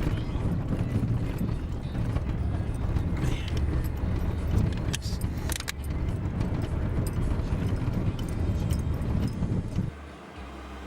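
Car running or driving, a loud low rumble with scattered rattles and clicks over it. About ten seconds in the rumble drops away abruptly, leaving a steady low hum.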